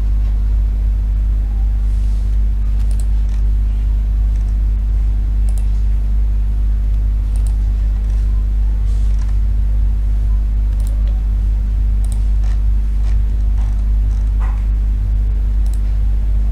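Steady low electrical hum on the recording, with faint, irregular clicks of a computer mouse being clicked.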